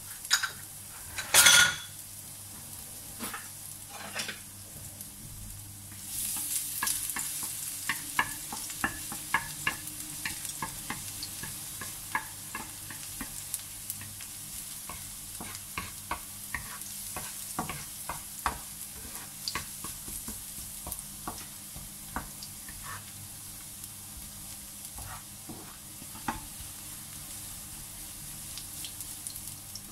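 Minced garlic sizzling in hot oil in a nonstick frying pan, stirred with a wooden spatula that clicks and scrapes against the pan many times. A sharp knock comes about a second and a half in, and the sizzle grows louder about six seconds in.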